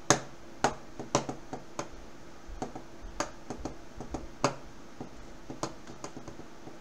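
Irregular sharp clicks and taps, about a dozen, closest together in the first couple of seconds and sparser after, from hands fidgeting with a utility knife.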